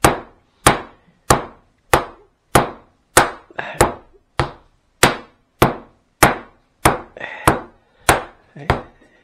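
Wooden rolling pin beating a slab of tourtière landaise dough on a table: about fifteen strikes in an even rhythm of roughly three every two seconds.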